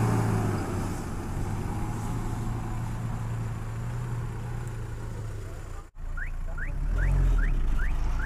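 Off-road vehicle engine running steadily. After an abrupt cut, a low rumble with six quick rising chirps at a steady pace, about three a second.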